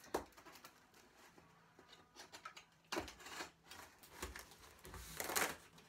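A cardboard box being opened by hand: scattered knocks and clicks of handling, with a longer rustle of cardboard or packing about five seconds in.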